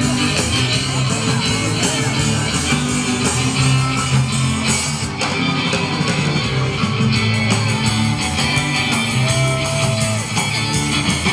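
Live rock band playing amplified electric guitars over bass and drums, a steady run of rock music.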